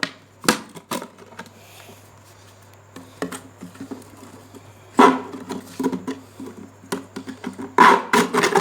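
Plastic soft-drink bottle being cut and handled: scattered sharp clicks and crackles of the plastic, with a louder crackling cluster about five seconds in and another near the end.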